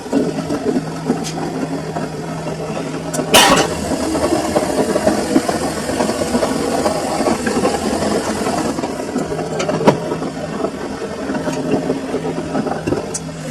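Samsung washing machine running, a steady motor hum under churning and rattling, with a sharp knock about three and a half seconds in and a smaller one near ten seconds.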